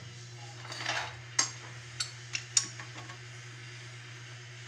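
A few sharp clicks and light knocks of hard objects being handled, with a short scrape about a second in, over a steady low hum.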